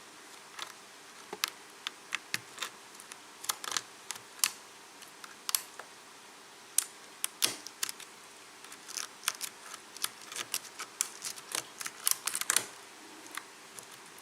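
A lock pick working the pin stack of a Kwikset KIK cylinder lock: irregular small metallic clicks and ticks as pins are lifted and set one by one, thicker in a quick cluster near the end.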